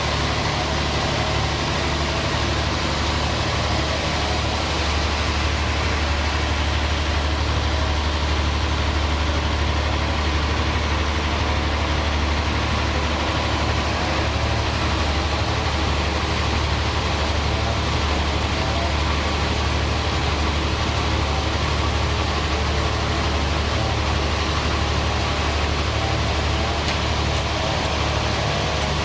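Band sawmill machinery running with a steady low hum that does not change.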